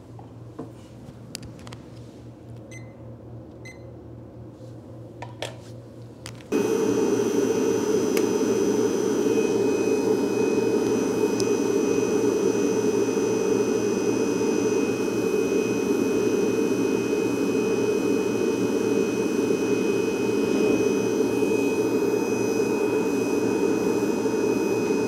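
The air blower of a homemade fluid-bed coffee roaster switches on suddenly about six seconds in and then runs steadily as a loud rush of air with a faint high whine. Before it starts there is only a low hum and a few small clicks.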